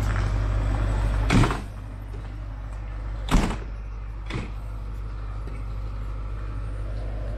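Slam doors on an HST's Mark 3 coaches banging shut three times: about a second and a half in, about three and a half seconds in (the loudest), and a fainter one about four and a half seconds in. Under them runs the steady low hum of the train's idling diesel power car.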